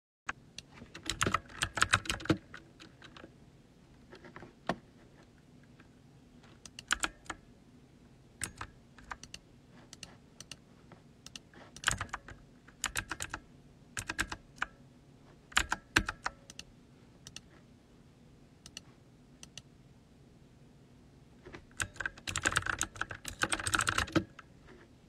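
Typing on a computer keyboard: irregular flurries of keystrokes with short pauses between, the busiest flurries about a second in and near the end.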